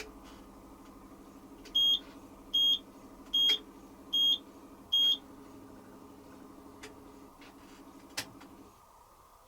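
Hoover Quattro System Power Jet Easylogic AE130 washing machine beeping five times, short even beeps at one high pitch less than a second apart, signalling the end of the programme. A low machine hum underneath stops near the end, with a couple of faint clicks just before.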